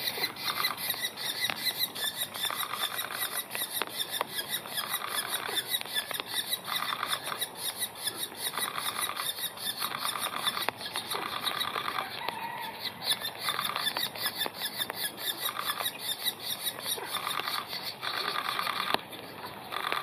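Banded woodpecker nestling begging from the nest hole: a short, rapid, buzzy chattering call repeated about every second and a half.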